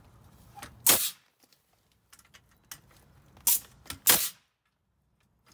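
Hitachi pneumatic framing nailer firing 16d galvanized nails through the side holes of a steel joist hanger into the framing lumber: three sharp shots, one about a second in, then two about half a second apart past the middle.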